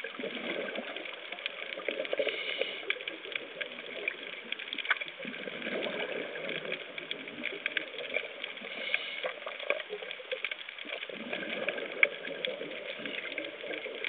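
Underwater sound: a diver's exhaled bubbles, welling up in waves every few seconds, over a constant fine crackle of clicks.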